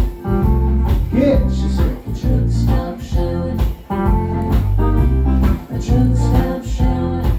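Live band playing a song on electric guitar, electric bass and drum kit, with a steady beat and a prominent bass line.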